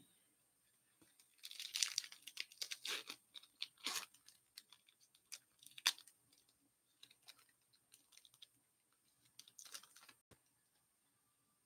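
Plastic wrapper of a hockey card pack being torn open and crinkled by hand, in crackling bursts for several seconds, then again briefly near the end.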